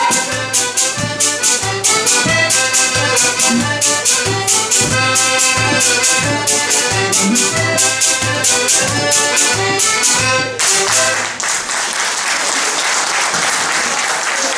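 Portuguese folk dance music played live on accordion, with a steady beat and sharp percussion, that stops about ten and a half seconds in. Applause from the audience follows.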